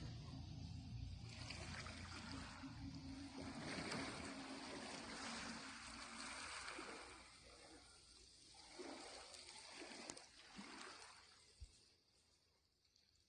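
Water washing in irregular, hissing surges that swell and recede several times before dying away near the end, with a low rumble fading out in the first second or two.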